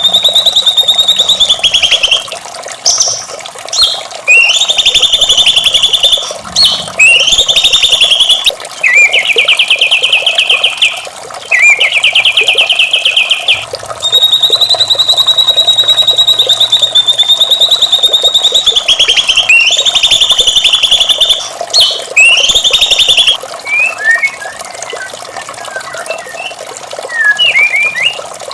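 White-rumped shama (murai batu) singing: long, high, held whistles alternating with fast buzzing trills, then a run of short scattered chirps near the end.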